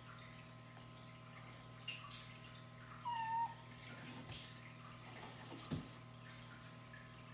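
A domestic cat meows once about three seconds in, a short call that drops in pitch at its end. A few light knocks come from a cardboard box that the cat is inside as it shifts on the floor.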